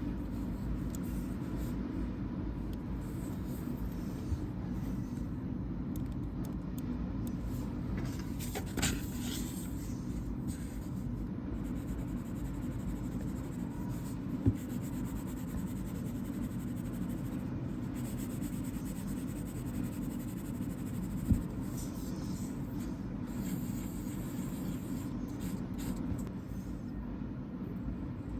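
Mechanical pencil (Zebra DelGuard 0.5 mm) writing on paper: faint scratching of the lead over a steady low hum, with a few short sharp clicks.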